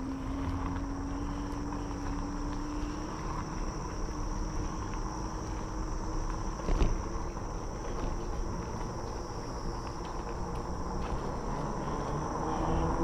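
A RadRover 5 fat-tire electric bike being ridden: a low whine from the hub motor climbs slowly in pitch over a rumble of tyres and wind, with a steady high insect drone behind it. One sharp knock about seven seconds in.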